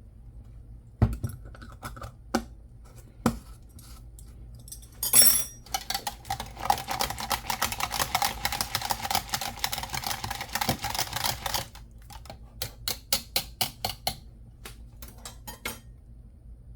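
A utensil beating eggs in a bowl: a few knocks, a ringing clink against the bowl about five seconds in, then about six seconds of fast tapping and a shorter run of quick strokes near the end.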